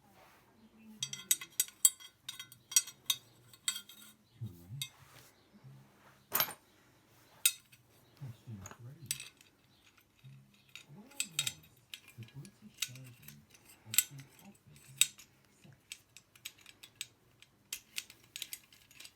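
Small metal parts clinking and tapping at irregular intervals: nuts, pipe clips and threaded rod being handled and fitted together.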